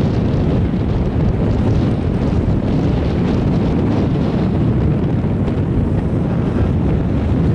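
Wind buffeting the microphone of a camera riding a moving chairlift: a steady, loud, low rumbling noise.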